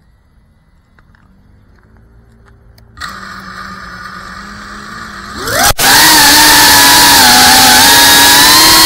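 GEPRC FPV quadcopter's motors and propellers, heard through its onboard camera's microphone. About three seconds in, the motors start with a steady hum. Near six seconds the pitch sweeps up to a loud whine as the throttle is raised for takeoff, and it climbs further near the end.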